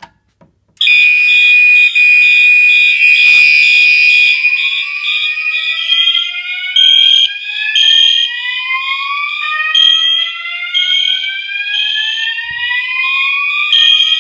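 A click as a fire alarm pull station is pulled. Under a second later, a fire alarm system goes into alarm: several notification appliances sound at once, very loud, with a steady high tone, a fast-pulsing tone and slow rising whoop sweeps that repeat and overlap.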